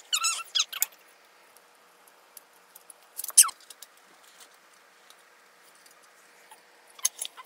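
Hard plastic dinosaur toy pieces being handled, pulled apart and fitted together: scattered small clicks with a few short high squeaks and creaks, the loudest a falling squeak a little over three seconds in.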